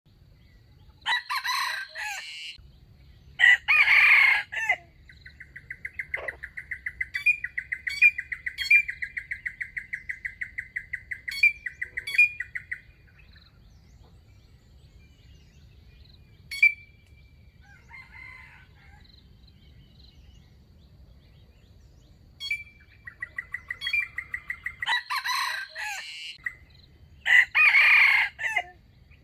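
Rooster crowing four times, in two pairs near the start and near the end. Between the crows comes a long run of fast, even chirps, several a second.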